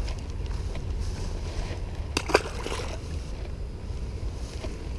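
Wind rumbling on the microphone, with one short splash about two seconds in as a small bass is dropped back into the pond.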